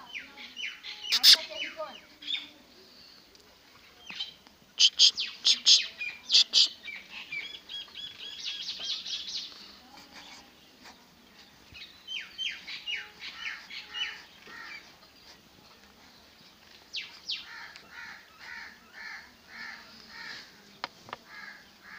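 Birds chirping in short, high calls that come in quick runs, loudest about five to seven seconds in, with a steady series of lower calls at about two a second near the end.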